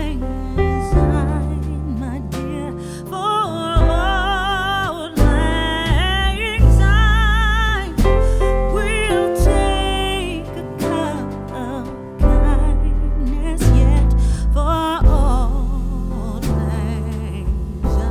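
Background music: a song with a singing voice, held notes wavering with vibrato, over deep sustained bass notes that change every second or two.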